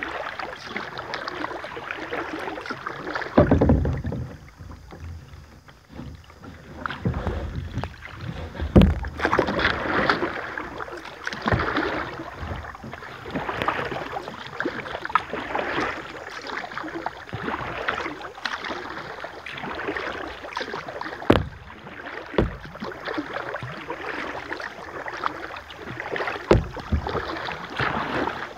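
Kayak paddle strokes dipping and splashing in river water, an uneven swish every second or two, with a few sharp knocks mixed in.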